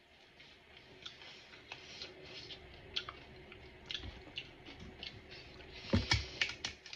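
Crisp pani puri shells crunching while being chewed: scattered small crackles. About six seconds in there is a louder cluster of sharp cracks as a hollow puri shell is broken open with the fingers.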